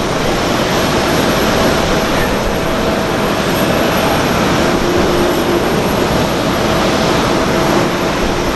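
Jet airliner engines running loud and steady as the aircraft taxi, from a Boeing 747-400 and a Boeing 777. The sound is a constant rush with faint steady whining tones through it.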